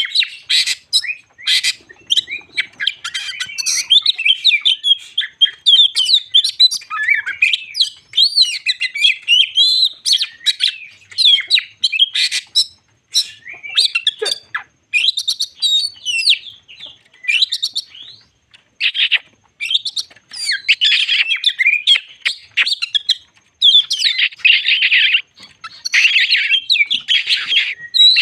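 Oriental magpie-robin (kacer) singing a long, varied song of rapid chirps, whistles and sharp notes, broken by brief pauses.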